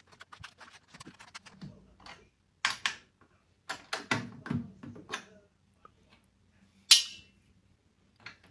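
Metal bass drum claw hooks and tension rods clicking and clinking against the hoop as they are fitted by hand, in irregular taps, with one sharper clack about seven seconds in.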